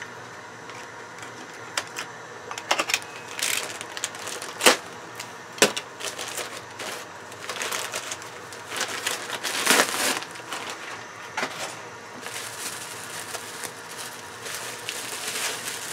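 Packaging unwrapped by hand: paper and plastic bubble wrap crinkling and rustling in an irregular run of crackles, with a few sharper snaps.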